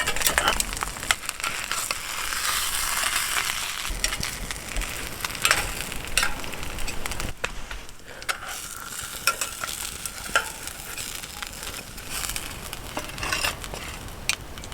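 Folded naan calzone frying in an oiled pan over a campfire: a steady sizzle with many short, sharp pops scattered throughout.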